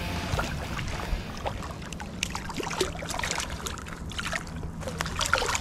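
A hooked fish splashing and thrashing in shallow water as it is reeled onto the bank. The splashes come as an irregular run of sharp slaps, thickest in the second half.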